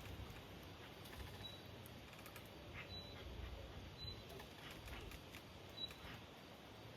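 Faint bird calls, a short high note repeated about once a second, over a low steady outdoor rumble.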